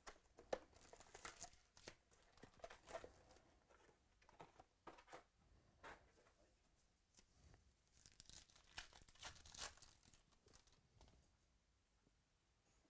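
Faint rustling, crinkling and tearing of trading-card foil pack wrappers and box cardboard as a box of baseball card packs is opened and a pack torn open, with a denser flurry of crinkles about eight to ten seconds in.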